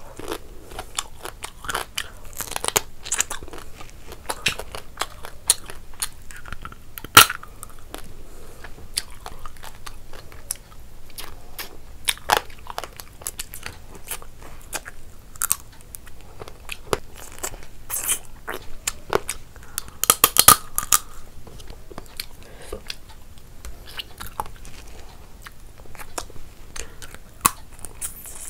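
Close-miked eating by hand: chewing, biting and crunching of food, with short clicks throughout. A single sharp crack comes about seven seconds in, and a burst of louder crunches around twenty seconds in.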